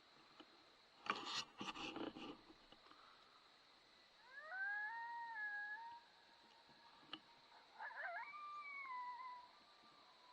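Two coyote howls, each rising in pitch and then held before trailing off, the second beginning with several voices rising together. A short noisy burst comes about a second in.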